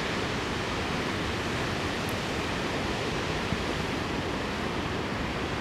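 Steady, even rush of ocean surf.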